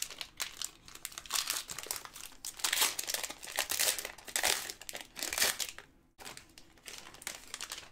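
Foil trading card pack wrapper crinkling as gloved hands tear it open and pull it off the cards: a dense run of irregular crackles that dies away about six seconds in.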